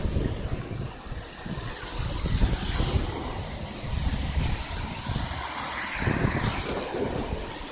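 Gusty typhoon wind buffeting the microphone in uneven swells, over a steady hiss of heavy rain.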